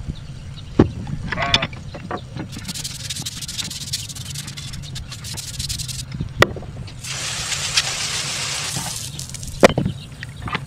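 Water swishing and splashing in a plastic bucket of citric-acid rust-remover solution as a rusty steel control arm is lowered in and stirred with a brush, in two long stretches, with a few sharp knocks of metal against the bucket. A steady low hum runs underneath.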